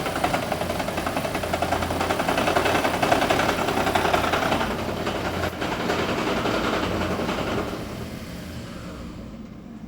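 Toyota Prius 30's 1.8-litre petrol engine running rough with a fast, dense knocking rattle, caused by the EGR valve being forced open through a diagnostic active test. The knocking dies away about eight seconds in as the engine stops.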